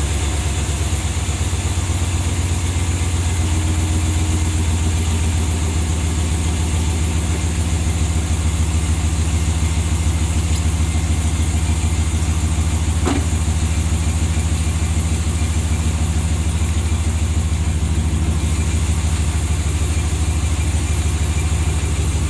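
A 2020 Ram 1500's 5.7-litre HEMI V8 idling steadily on a cold engine, with no revving.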